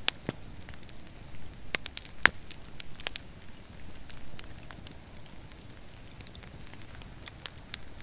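Long log fire of dead pine logs burning, the embers between the logs crackling with irregular sharp pops, the loudest right at the start and about two seconds in.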